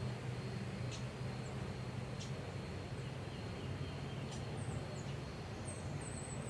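Outdoor ambience: a steady low hum under small birds giving short, high chirps, with a quick run of repeated chirps near the end.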